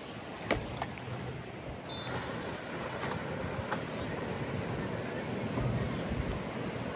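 Steady wash of ocean surf and wind at the beachfront, with a few sharp clicks and a brief high beep about two seconds in.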